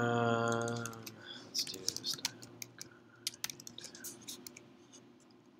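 Computer keyboard typing: a quick, irregular run of key clicks that thins out toward the end. It opens with about a second of a person's voice holding one drawn-out sound.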